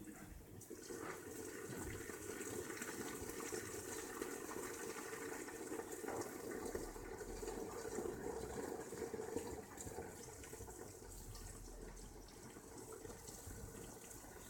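Rain falling into a water-filled corten steel pool, a steady hiss of drops on the water, louder for the first several seconds and then easing slightly.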